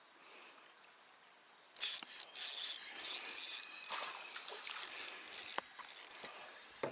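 A hooked black bass thrashing at the surface: a run of water splashes, starting about two seconds in.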